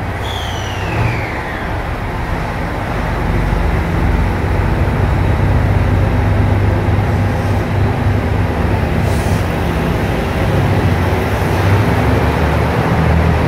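JR Shikoku 2700 series diesel limited-express railcar pulling away from a platform. Its engines run louder from about four seconds in as the cars roll past. A brief falling whine sounds near the start.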